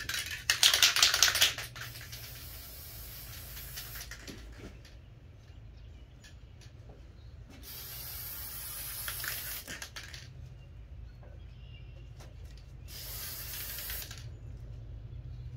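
An aerosol can of gold spray paint hissing in three bursts. The first lasts about four seconds and is loudest and crackly at its start, a second comes about halfway through, and a short third comes near the end.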